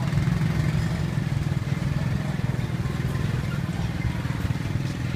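A small engine idling steadily with a low, even hum.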